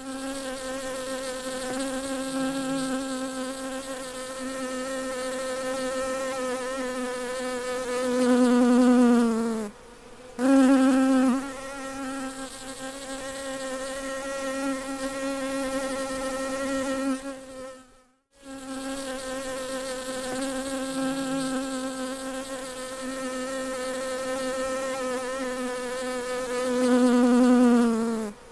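A bee buzzing in flight: a steady drone with a clear pitch. It swells louder about eight seconds in and again near the end, each time sliding down in pitch before a brief break, with another short break just past the middle.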